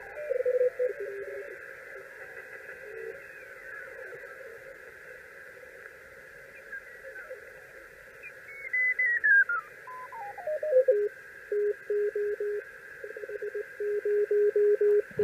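Elecraft KX1 receiver audio played through a homemade resonant PVC-tube CW speaker, with the filter wide open: band hiss and Morse code tones. About eight seconds in, a station's tone slides down in pitch as the dial is tuned across it, then settles into keyed Morse dits and dahs.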